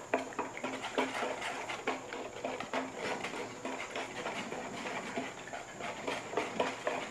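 A small wire whisk beating barbecue sauce in a plastic bowl: rapid, uneven clicking and scraping of the wires against the bowl, with the liquid swishing.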